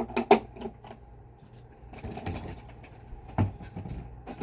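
Hard plastic vacuum cleaner attachments being handled: a quick run of clicks and knocks at the start, a soft rustle about two seconds in, and another knock a little later.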